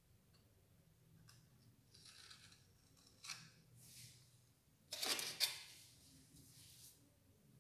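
A drinking glass pressed and worked through rolled dough on a stone counter: faint scraping of the glass rim, with light knocks of the glass on the counter, the loudest about five seconds in.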